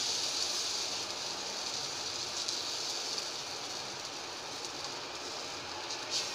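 Sooji (semolina) batter sizzling steadily in oil on a hot iron tawa as it is spread out with a steel ladle, the hiss easing slightly over the few seconds.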